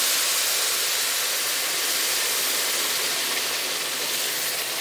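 Hot water poured from a kettle into a hot pot of browned chicken, hissing and sizzling in a loud, steady rush as it steams. The hiss eases off near the end.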